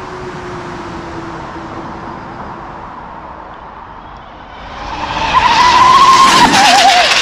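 High-speed dual-motor RC car running, its motor whine faint at first, then swelling loud about five seconds in as it comes close at speed, the whine climbing and then dropping in pitch near the end as it passes.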